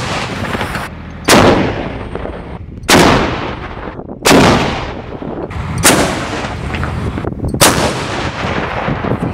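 Five artillery blasts from an M101 105 mm howitzer firing live rounds, about a second and a half apart, each a sudden loud report trailing off over about a second.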